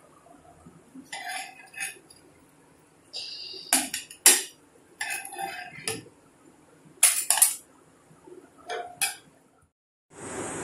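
A spatula scraping and clinking against a frying pan and a ceramic plate as caramelized toast slices are lifted out of the pan. It comes as a string of short scrapes and clinks with pauses between them, the sharpest about four and seven seconds in.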